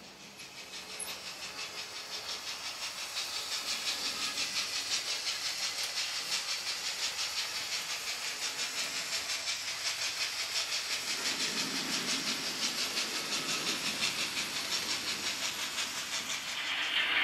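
Model steam locomotive's digital sound decoder playing a steam-engine chuff: an even rhythm of hissing beats, about four a second, fading in over the first few seconds and then holding steady. A lower rumble joins about eleven seconds in.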